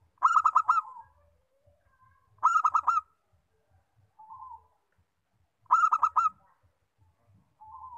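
Zebra dove (perkutut) cooing: three loud bursts of quick staccato notes, each of four or five notes, about two to three seconds apart, with softer single coos between them.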